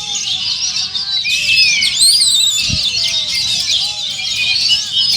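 Several oriental magpie-robins (kacer) singing at once, a dense, loud chorus of overlapping high whistles, trills and chirps. A low thump sounds about two and a half seconds in.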